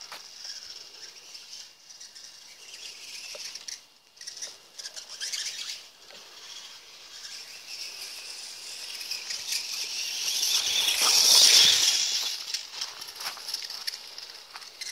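Losi Promoto-MX electric RC motorcycle riding across grass: a high whirring hiss of motor, drivetrain and tyres that swells to its loudest about eleven seconds in, as the bike comes close, then fades.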